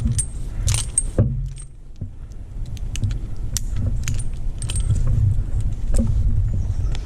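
Metal climbing hardware such as karabiners clinking and jangling as the climber moves, scattered clicks over a steady low rumble of handling noise on the helmet-mounted camera.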